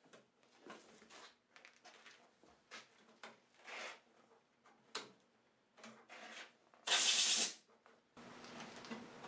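Compressed-air blow gun blowing dust off a lawn mower: a series of short faint puffs of air, then one loud half-second blast of air about seven seconds in. A steady low hum starts just after the blast.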